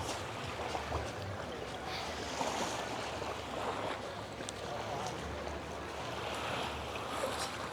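Seaside ambience: small waves washing on the shore, with wind rumbling on the microphone.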